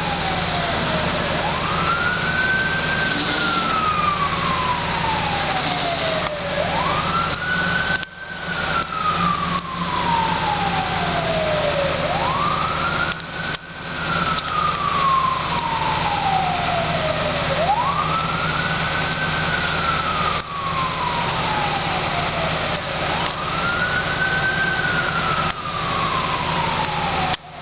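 A siren wailing in a repeating cycle: a quick rise, then a slow fall, about every five seconds, over a steady engine hum.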